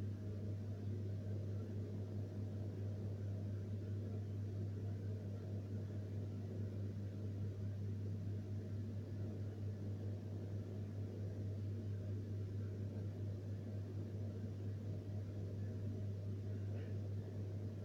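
Steady low mechanical hum, with a faint short scrape near the end.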